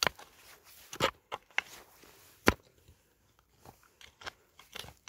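Wooden-handled mattock striking dry, stony soil: a string of irregular blows about half a second to a second apart, the hardest about two and a half seconds in, with lighter hits after.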